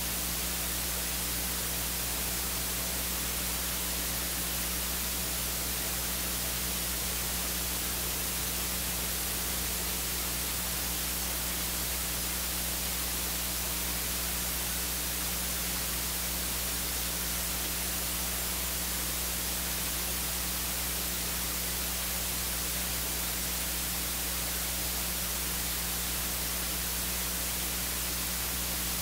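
Steady hiss with a low hum underneath, unchanging throughout: noise from the audio feed with no speech or music on it.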